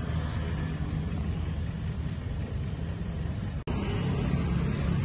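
Steady street traffic noise with a low engine hum. It cuts out for an instant about three and a half seconds in, then carries on.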